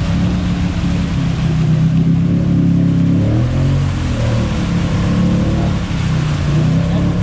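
Snorkeled ATV engine running hard under load as the quad churns through deep mud, with mud and water splashing around the tires. The engine pitch drops briefly about three and a half seconds in, then climbs again.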